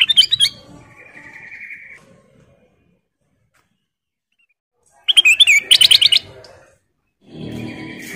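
Kutilang emas bulbul calling: a burst of quick chirping notes, a short buzzy note, then after a pause another rapid run of chirps about five seconds in. A low rustling noise follows near the end.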